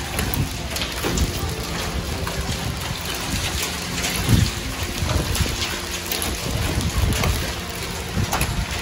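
Hailstones falling on a road and parked cars: a steady dense hiss with many sharp ticks of ice striking.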